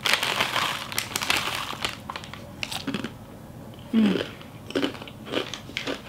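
Crinkling of a foil snack bag as it is tipped up and its contents poured into the mouth, then crunching bites of a dry snack being chewed. A short low hum of the voice comes about four seconds in.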